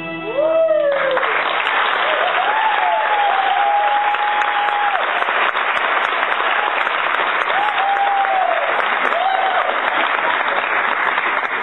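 The song's last note ends about a second in, and audience applause breaks out and keeps going, with several voices whooping in rising and falling cheers over the clapping.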